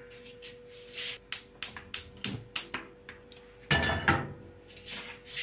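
Gas cooker's electric igniter ticking several times in quick succession, about three clicks a second, as a burner is lit. Then a metal pot clatters down onto the burner grate.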